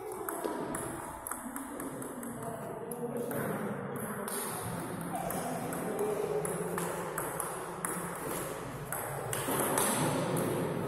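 Table tennis rally: a celluloid-type ball clicking back and forth between the bats and the table in a quick series of sharp pings.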